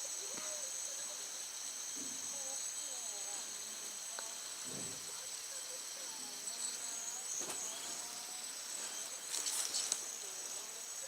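Steady high-pitched chirring of crickets, with a short click about seven seconds in and a louder rustle about nine and a half seconds in.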